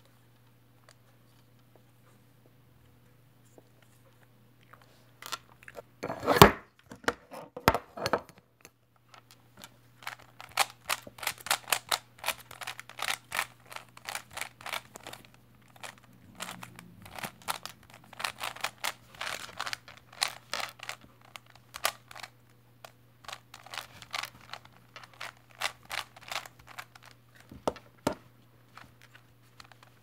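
Plastic 3x3 Rubik's cube being handled and turned by hand. A few loud knocks come about six to eight seconds in, then a long quick run of clicking layer turns, over a faint steady hum.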